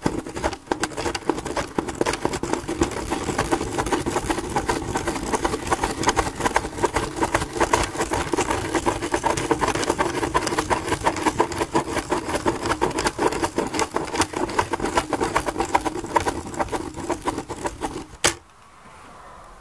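Spirograph drawing: a pen drives a plastic gear wheel round inside a toothed plastic ring, the pen scratching on paper and the gear teeth clicking rapidly and evenly against the ring. It stops abruptly with a click near the end.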